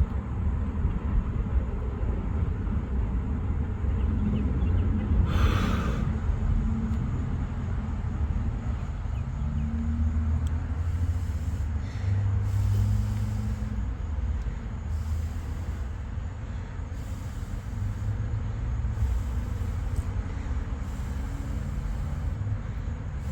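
Low, steady rumble of wind buffeting the microphone, with a brief hiss about five seconds in.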